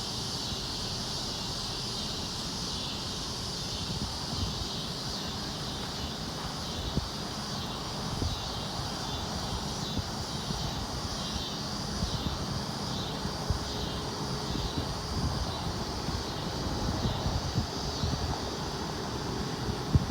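Chorus of summer insects buzzing in a steady high band that pulses about twice a second, over a low rumble.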